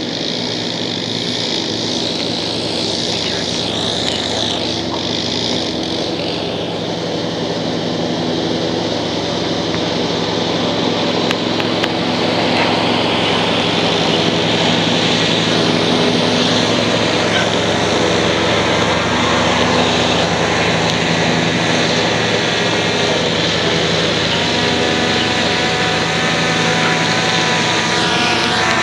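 Quadcopter on 8-inch propellers and a 4S battery, its motors and props making a steady multi-tone hum. The hum gets a little louder about halfway through, and near the end its pitch shifts upward as the motors change speed during the return-to-launch.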